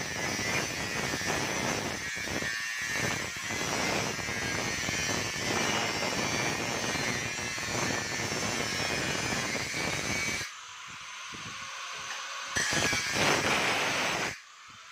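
Angle grinder with a cutting disc cutting into an aluminium screen-door frame to open the slot for the lock. The sound drops about ten seconds in, comes back for a couple of seconds, then cuts off near the end.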